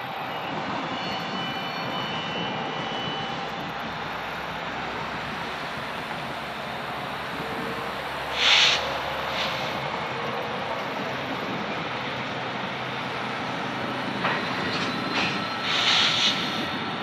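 Steady rumble of a freight train rolling slowly in the distance during switching, with two short, loud hissing bursts, one about halfway through and one near the end.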